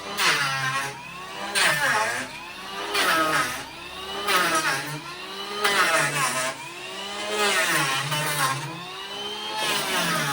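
Handheld electric woodworking tool working a wooden door frame in repeated passes, about every second and a half. With each pass the motor's pitch sags under load and recovers, with a rasp of cutting.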